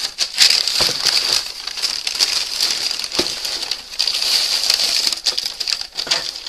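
Packaging being rummaged through: steady crinkling and rustling of paper or plastic wrapping, with scattered clicks and knocks.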